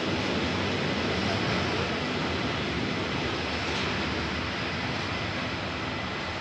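Steady running noise of a GoldenPass Line train under way: an even rumble and hiss of wheels on rail.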